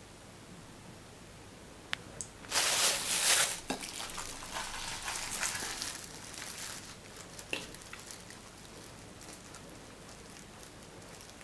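Plastic piping bag of sour cream and mayonnaise crinkling and rustling in the hands: loudest for about a second near three seconds in, then softer rustling as it is squeezed, with a single click a little past halfway.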